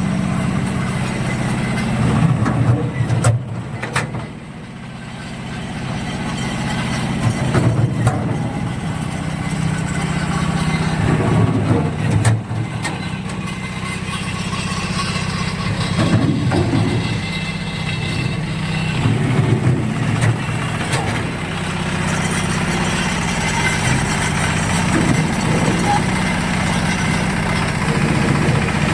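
An engine idling steadily, with a few sharp knocks and clanks about 3, 4 and 12 seconds in.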